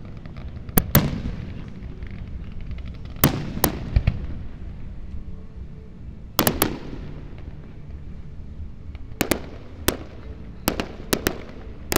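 Aerial firework shells bursting: about a dozen sharp bangs in irregular clusters, often two close together, each trailing off in an echo over a steady low rumble.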